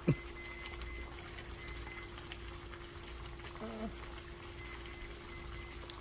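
Crickets chirping in a steady high trill, over a low steady hum.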